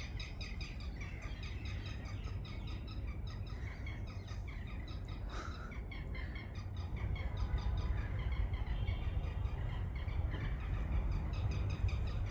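Small birds chirping: many short high chirps repeated quickly, overlapping throughout, over a steady low rumble.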